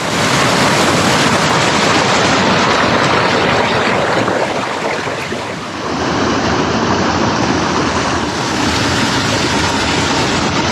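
Loud, steady rushing of a small hill stream, easing briefly about halfway through.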